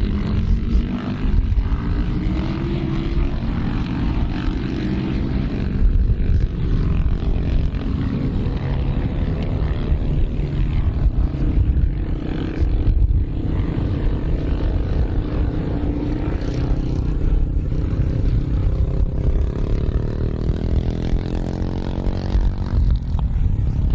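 Britten racing motorcycle's V-twin engine running loudly and continuously, its pitch rising and falling again and again as it revs and eases off.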